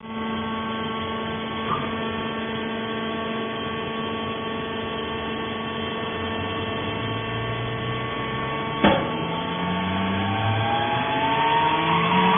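Hydraulic fiber baler running with a steady hum from its motor and pump, a sharp clank about nine seconds in, then a rising whine as the machine takes up load.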